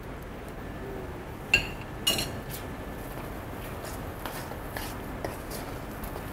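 A metal spoon strikes a stainless steel mixing bowl twice with a sharp, ringing clink, about a second and a half and two seconds in. Lighter scraping and small taps follow as the spoon stirs thick hush puppy batter.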